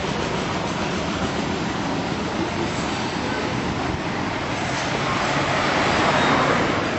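Street traffic noise, with a small car driving past close by near the end, its sound swelling as it passes.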